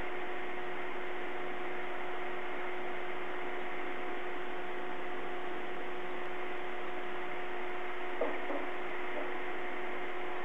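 Steady hiss with a constant electrical hum from a nest webcam's audio feed, unchanging throughout; a faint click about eight seconds in.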